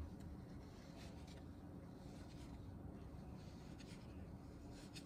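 Faint, intermittent scratching of a potter's needle tool drawing through a soft clay slab, cutting out a teapot lid.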